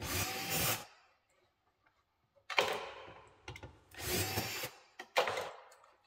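Cordless drill-driver with a Torx T27 bit backing out the screws that hold a car's door trim panel, running in several short bursts with pauses between.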